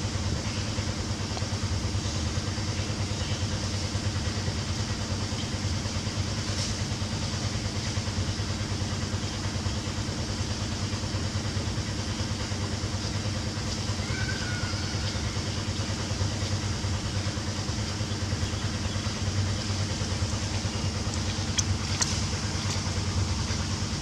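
Steady low mechanical hum, like an engine idling, with a couple of faint clicks.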